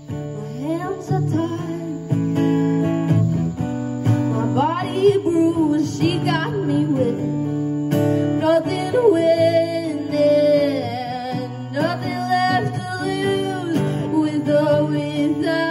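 A woman singing with long sliding notes over a strummed acoustic guitar.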